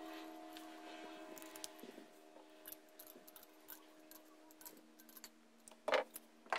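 Small metal clicks and taps as pliers and a bent-nose tool grip and work a small assembly of tin can lids, with one louder metallic clank a little before six seconds in.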